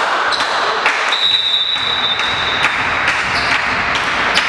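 Busy sports-hall noise during a volleyball match: a steady wash of voices and movement with scattered short claps and knocks. About a second in, a steady high whistle sounds for about a second and a half, the kind a first referee blows to allow the serve.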